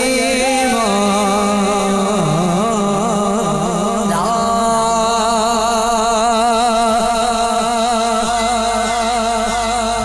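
A man singing a Punjabi Islamic devotional song into a microphone, holding long notes with a wavering, ornamented pitch.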